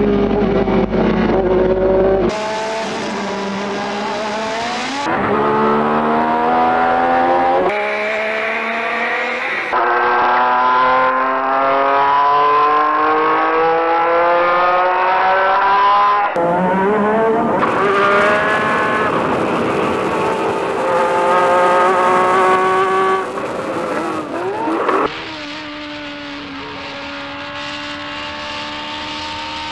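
Formula 1 race car engines from the early-to-late 1980s, heard onboard, accelerating hard. The pitch climbs through each gear and breaks off at each upshift in a string of short spliced clips. About 25 seconds in, it settles to a quieter, steadier engine note.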